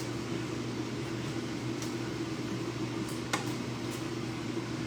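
Steady hum of a kitchen appliance's fan motor, with a few light clicks and taps from a utensil or basket, the sharpest a little past the middle.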